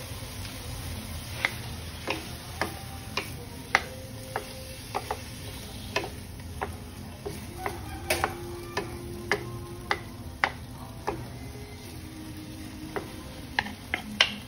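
Wooden spatula and wooden spoon knocking against a nonstick wok as sliced chicken is stirred and turned: irregular sharp clacks, about one or two a second.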